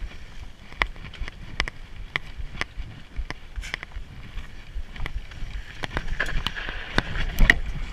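Mountain bike being ridden over a rough dirt trail. The chain and frame rattle in irregular sharp clicks over the bumps, above a steady low rumble of tyres and wind on the microphone. It gets louder and busier near the end.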